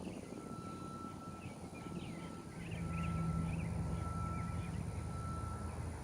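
Outdoor ambience with no siren sounding: small birds chirping, a faint steady high tone that cuts out briefly about once a second, and a low engine hum that swells about two and a half seconds in.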